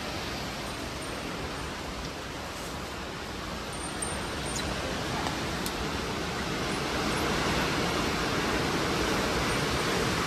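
Steady rushing wind, buffeting the microphone with a low rumble, growing a little louder near the end.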